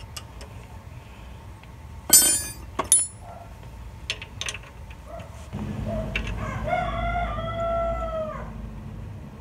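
A metal wrench clinks sharply and rings about two seconds in, with a smaller click just after, while bolts on a car's clutch slave cylinder are being worked loose. Near the end a rooster crows once, one long call falling off at the end, over a low rumble.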